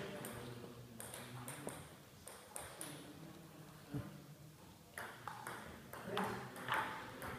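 Table tennis rally: a celluloid ping-pong ball clicking off the players' bats and the table, a sharp click every half second to a second.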